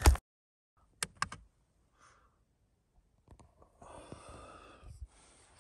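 A sharp click, a few softer clicks about a second later, then a breathy exhale like a sigh lasting about a second near the end.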